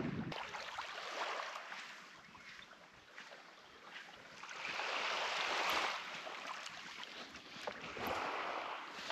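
Small waves washing onto a sandy shore, a soft hiss that swells twice, about five seconds in and again near the end.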